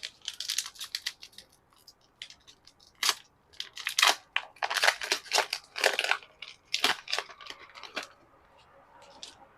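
Kayou Naruto trading-card booster pack and cards being handled: the foil wrapper crinkling and the cards rustling, in a quick, irregular run of sharp crackles and snaps.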